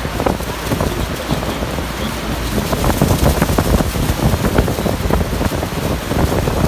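Roar of the American Falls and churning water, heard from a boat's deck, with strong gusty wind buffeting the microphone; it grows louder about halfway through.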